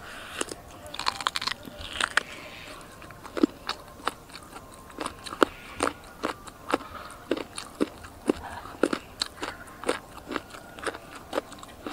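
Chewing and biting of soy-braised donkey meat pulled from the bone, with crunching clicks about twice a second.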